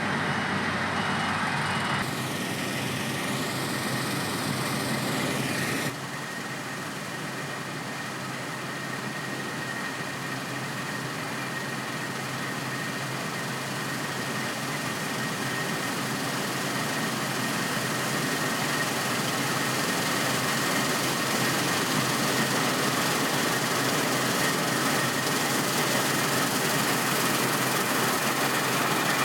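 Claas Lexion 760 combine harvester running, a steady mechanical din with a thin high whine through it. The sound changes abruptly about two and six seconds in, then grows gradually louder.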